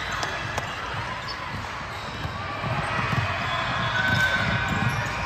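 Basketball game play on a hardwood court in a large gym: the ball bouncing as players dribble and run up the floor, over a steady background of voices in the hall. The thumps grow more frequent about halfway through.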